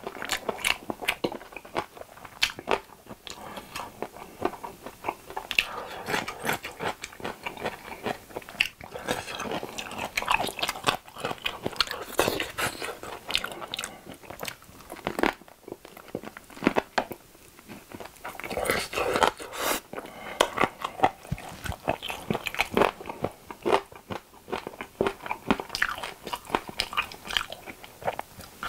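Close-miked biting and chewing of sauce-glazed fried chicken drumsticks, the coating crunching in irregular clicks throughout.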